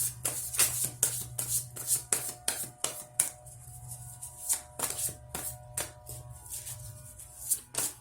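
Oracle cards being shuffled and handled: a quick, irregular run of sharp papery clicks. Soft background music with a steady low drone plays underneath.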